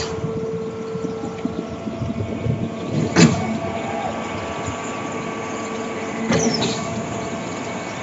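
Small portable concrete pump running with a steady mechanical hum and a sharp clack twice, about three seconds apart.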